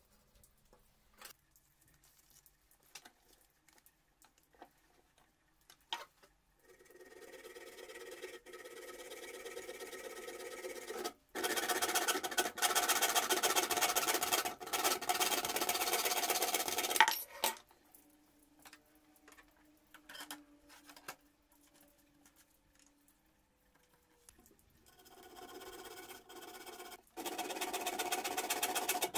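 Hand hacksaw cutting through an aluminum angle clamped in a bench vise, in runs of steady back-and-forth strokes. The sawing is loudest in the middle and again near the end, with a pause of several seconds between. Before the sawing starts there are a few soft ticks of a pencil marking and pieces being handled.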